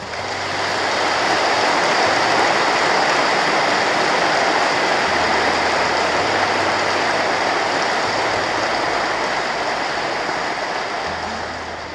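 Large crowd applauding, swelling over the first couple of seconds and slowly dying away near the end.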